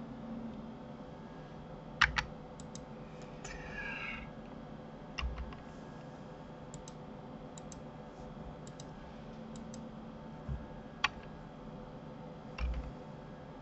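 Computer keyboard keys and mouse buttons clicking at irregular intervals, a dozen or so separate clicks, the sharpest about two seconds in and again near eleven seconds, over a faint steady hum.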